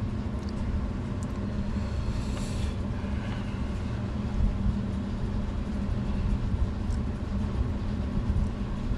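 A steady low mechanical hum and rumble with a constant low tone, like a motor or fan running, and a few faint ticks.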